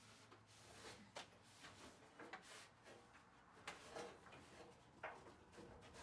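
Faint, scattered small clicks and knocks with soft rubbing as a gloved hand wipes and handles parts inside the open cabinet of a disassembled clothes dryer.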